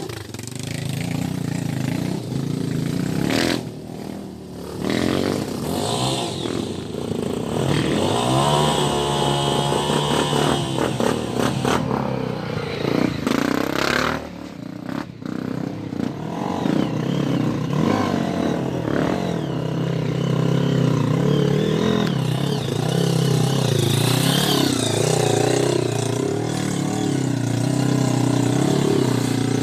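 250 cc single-cylinder four-stroke dirt bike engine riding on a trail, its pitch rising and falling with the throttle and easing off briefly a few seconds in and again about halfway through.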